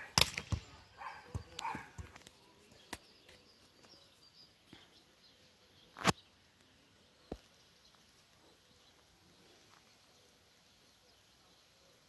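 A few sharp thumps of a football being kicked and landing on hard dry ground. They come in a quick cluster in the first second, then single thumps at about three seconds and about six seconds, the six-second one the loudest.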